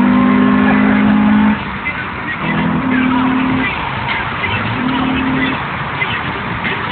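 Car horn sounding a steady two-note honk: one long honk of about a second and a half, then two shorter honks about a second apart.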